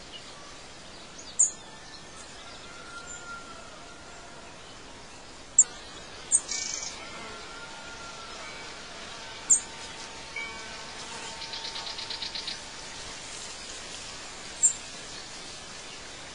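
Background birdsong ambience: several short, sharp high chirps scattered over a steady outdoor hiss, with a quick trill of about six notes a second a little past halfway.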